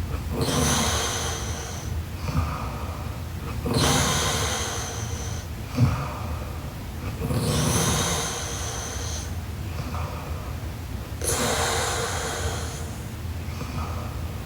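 A young woman snoring in her sleep: four loud, rough breaths about every four seconds, with quieter breaths between them. There is one short thump about six seconds in.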